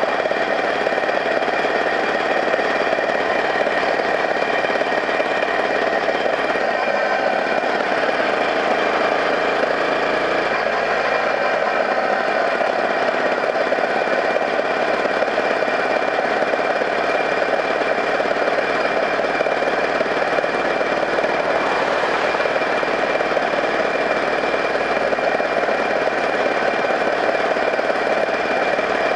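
Small engine running steadily at constant speed with a rattling, knocking quality, heard from the vehicle it drives as it travels along the road.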